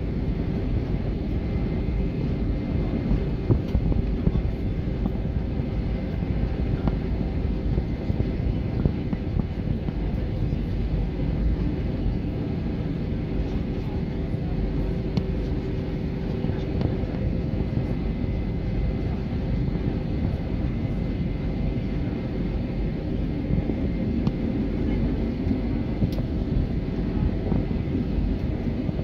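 Jet airliner engines heard from inside the cabin: a steady low rumble with a faint constant whine, while the plane rolls along the runway at low thrust.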